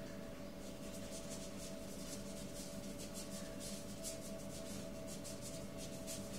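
Paintbrush stroking back and forth across paper: a run of quick, short scratchy swishes, several a second, that stop about five seconds in. A steady low hum runs underneath.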